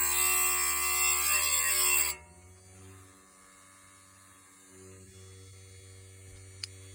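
Small electric saw sharpener grinding a carbide tooth on a sawmill blade: a high motor whine with grinding hiss that stops about two seconds in, leaving a faint hum, with one sharp click near the end.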